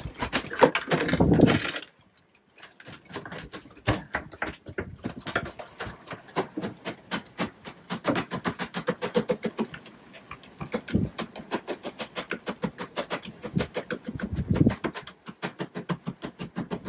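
A freshly landed dorado (mahi-mahi) thrashing on wooden cockpit grating, its tail drumming on the slats in rapid, irregular flurries of taps, with a short pause about two seconds in.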